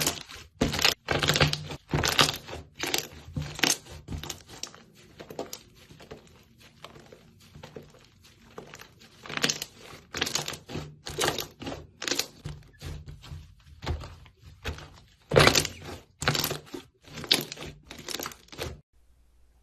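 Slime being squished and pressed by hand: a quick, irregular run of sticky pops and squelches, louder at the start and again toward the end, stopping abruptly just before the end.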